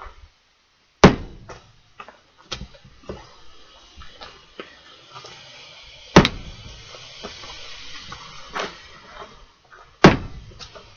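Three heavy blows of a fiberglass-handled steel splitting maul into firewood, about a second, six seconds and ten seconds in, with lighter knocks of wood between them.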